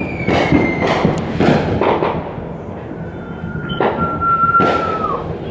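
Fireworks going off in the neighbourhood: a series of sharp bangs and booms, with two long high whistles, the first falling slightly and the second dropping off near the end.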